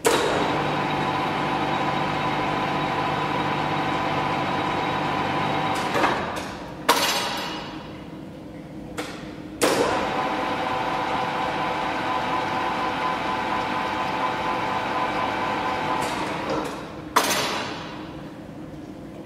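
Ernault Somua Cholet 550 lathe spindle and three-jaw chuck running up and spinning with a steady hum of several tones. It winds down after about six seconds with a sharp clack and a fainter hum underneath, starts again, and runs for about another six seconds before winding down with another sharp clack.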